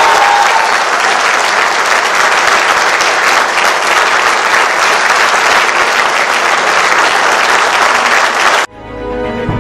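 Audience applauding steadily; the applause cuts off suddenly near the end, where music begins.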